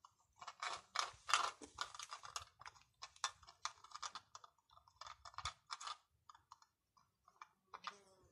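A cat eating soft flan out of a small cup: a quick, irregular run of small wet clicks from lapping and chewing, thick at first and thinning out toward the end.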